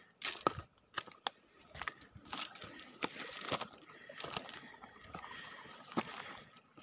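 Small mountain stream trickling between sheets of ice, with many irregular sharp clicks and crunches throughout, the loudest about half a second in and near the end.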